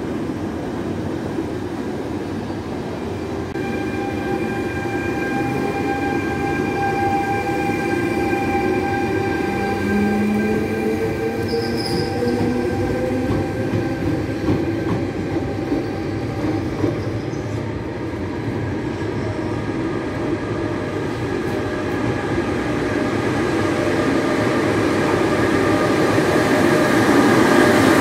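Trenitalia E.464 electric locomotive running, its motors giving a steady multi-tone whine, with one tone rising in pitch about ten seconds in as it gets under way. Near the end a freight train of car-carrier wagons passes close, louder, with wheel noise.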